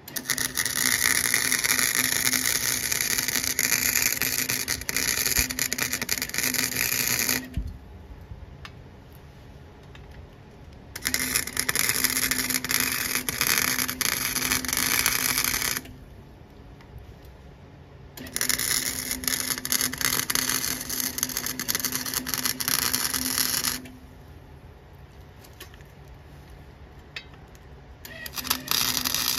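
Flux-core wire-feed welder arcing as it lays beads on the steel branch chute of a chipper shredder: a loud crackling, sputtering arc with a steady hum, in runs of about five to seven seconds with short pauses between. The fourth run starts near the end.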